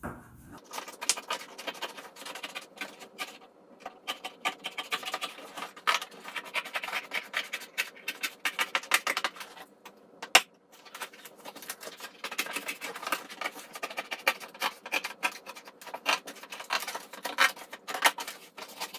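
Scissors cutting through corrugated cardboard: a rapid, continuous run of crunching snips, with a brief pause about ten seconds in.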